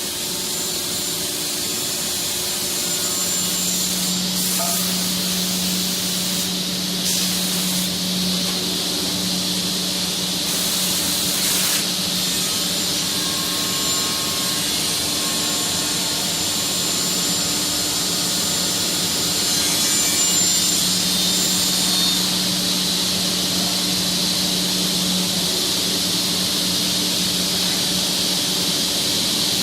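Three-head, 5-axis CNC wood router running and machining wood: a steady, dense cutting hiss with a low hum that swells and fades every several seconds.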